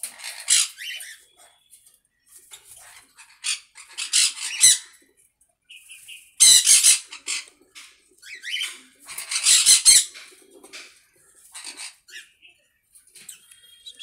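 Cockatiel sitting on its eggs, giving a series of harsh, raspy squawks in short bursts; the loudest come about six and a half and nine and a half seconds in.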